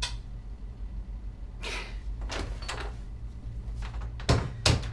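A bathroom door opened and pulled shut: soft rustling movement, then two sharp thuds in quick succession near the end as it closes.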